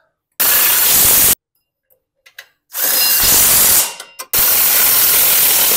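Cordless power driver driving self-tapping bolts into a snowblower frame to mount the engine, in three runs: two of about a second each, then a longer one starting near the end.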